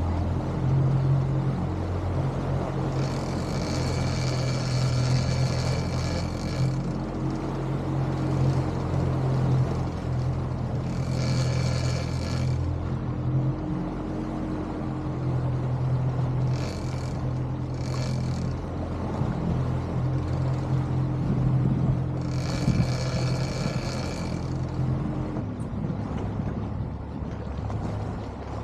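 A boat's motor running steadily at trolling speed. A higher whir comes and goes over it several times, each time for half a second to a few seconds. Near the end the lowest part of the engine hum drops away.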